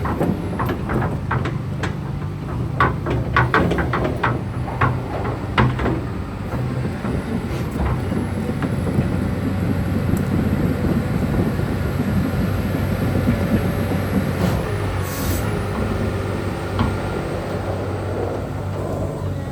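Hyundai Robex 300 LC-9A excavator's diesel engine running steadily, with a quick series of sharp metallic clanks from the machine during the first six seconds and a few more later.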